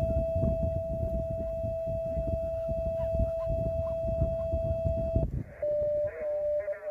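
A steady single-pitched tone from a homebrew 2m SSB transceiver, over a low rumble, cutting off after about five seconds. Near the end the radio gives a narrow-band, garbled single-sideband voice with a whistle under it, as a station is tuned in.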